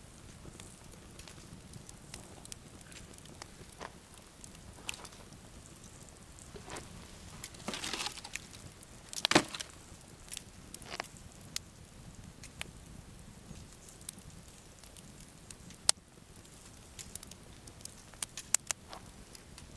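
Wood campfire burning: scattered sharp crackles and pops from the burning split logs over a faint steady hiss, with a louder flurry of popping about eight to nine seconds in and a quick run of pops near the end.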